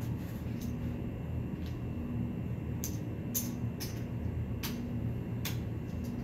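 Casino chips clicking together as they are handled and stacked, a scattering of sharp separate clicks, most of them in the second half, over a steady low hum.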